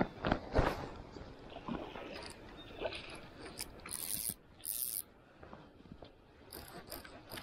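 Fly reel's click-and-pawl drag ratcheting, with a few knocks in the first second and two short high buzzes about four seconds in.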